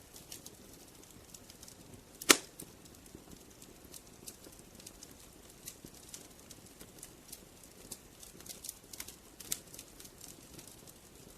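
Wood fire crackling: irregular small pops and snaps over a soft low hiss, with one loud pop about two seconds in.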